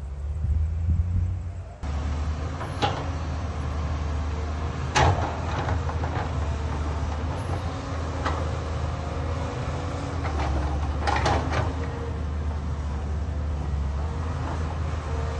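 Caterpillar 320D hydraulic excavator's diesel engine running steadily at work, with a handful of sharp clanks from the machine; the loudest comes about five seconds in and a quick pair comes near eleven seconds.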